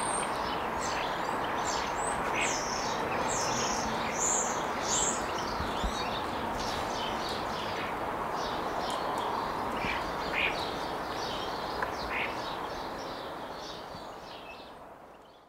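Many small birds chirping and singing over a steady background hiss, fading out near the end.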